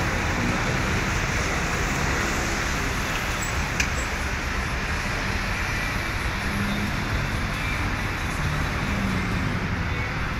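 Steady vehicle and traffic noise, a constant low rumble of engines with no change in level. There is one light click a little under four seconds in.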